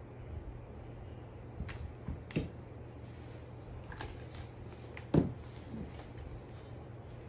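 Metal dog-wheelchair frame parts being handled and fitted together by hand: a few scattered clicks and knocks, the loudest about five seconds in, over a steady low hum.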